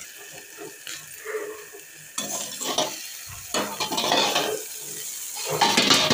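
Tomatoes and chopped vegetables sizzling in a frying pan under a steel plate lid, with louder metal clatter and scraping in the second half as the plate is handled and lifted off.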